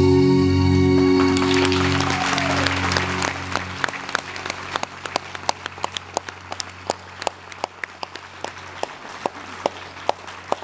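The performance music fades out under audience applause, which turns into rhythmic clapping in unison, about two to three claps a second, stopping abruptly near the end.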